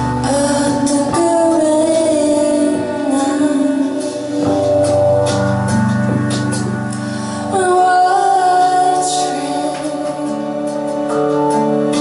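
A woman singing live while accompanying herself on an electric keyboard. Held keyboard chords change every three seconds or so under a slow sung melody with wavering, vibrato-like pitch.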